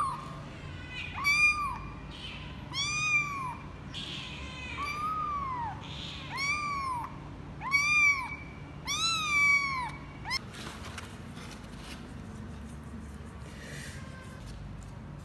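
A 24-day-old kitten meowing over and over, about eight cries roughly every second and a half, each rising and then falling in pitch. The cries stop about ten seconds in.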